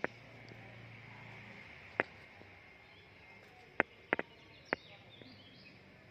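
Faint outdoor background noise broken by a few sharp, irregularly spaced taps: one about two seconds in, then a quick cluster of four around four seconds in. Faint bird chirps come in near the end.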